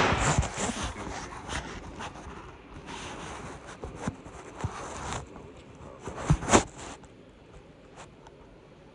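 Close rustling, rubbing and scraping, with a few sharp knocks, loudest at the start and again about six and a half seconds in, then fading out.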